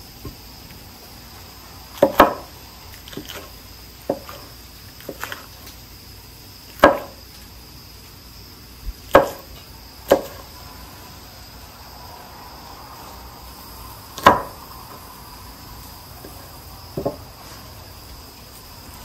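Knife chopping peppers on a cutting board: about a dozen separate knocks at uneven intervals, with crickets chirping steadily in the background.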